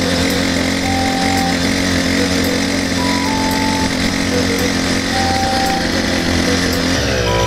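Small two-stroke motorized-bicycle engine running at a steady cruising speed while riding, its pitch dropping and wavering near the end.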